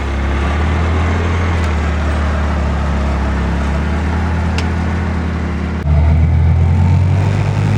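A motor vehicle's engine running steadily with a low hum; about six seconds in the sound changes abruptly and gets louder.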